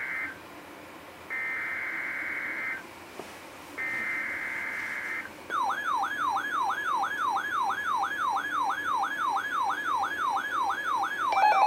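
Emergency Alert System SAME header bursts on NOAA Weather Radio for a Required Weekly Test: the tail of one buzzy digital data burst, then two more, each about a second and a half long. About five and a half seconds in, a weather alert radio's electronic alarm starts, a siren-like tone sweeping up and down about twice a second, and a second steady beeping alarm tone joins at the very end.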